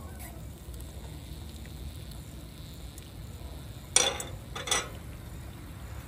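Two short clatters of a cooking utensil against the pan on a wood stove's top, where an egg is frying, the second about a second after the first, over a steady low rumble.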